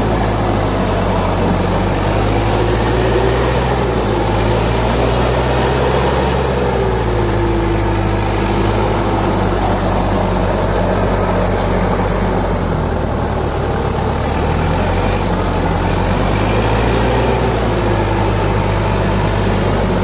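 HMT 5911 tractor's diesel engine running steadily while it pulls a heavily loaded trailer slowly forward. Its pitch rises and falls slightly a few times.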